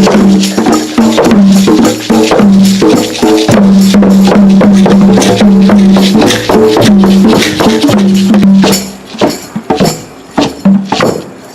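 Group drumming on hand drums with jingling percussion, a steady rhythm with a low held tone repeating under the beat. About nine seconds in, the playing breaks off into a few scattered strikes.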